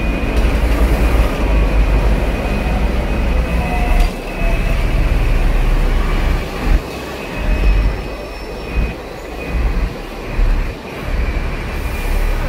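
Hong Kong double-decker tram running along its street track, heard on board: a steady heavy low rumble with a faint steady high tone, the level surging and dipping several times in the second half.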